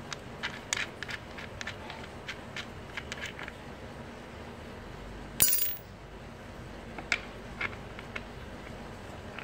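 Light clicks and clinks of a plastic sanding backing pad and its metal shank being handled and fitted together by hand, with one much louder sharp metallic click about five and a half seconds in, and a few more clicks near the end.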